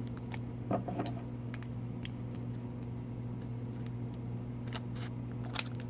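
Faint scattered ticks and light rustles of hockey card packs and cards being handled, over a steady low hum.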